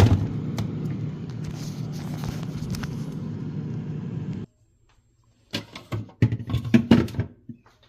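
Steady low hum of a refrigerator's compressor running while its condenser fan is dead, cutting off abruptly about four and a half seconds in. Near the end come a series of sharp clicks and knocks, as of parts being handled.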